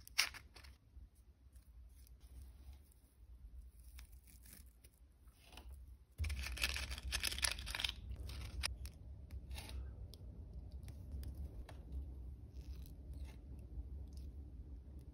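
Close-up handling noises: a sharp click at the start, then scattered small clicks and scrapes. About six seconds in there is a two-second burst of rustling as wooden matches are pulled from a cardboard matchbox. Faint scratching follows as thin copper wire is wound around the match heads.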